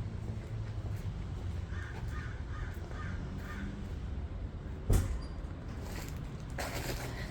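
A crow cawing about five times in quick succession, over a steady low rumble. A single sharp thump, the loudest sound, comes about two-thirds of the way through, and a rustle near the end.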